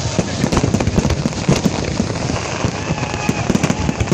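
Dense crackling and popping of fireworks: many small bursts and low thuds in rapid succession, with no pause.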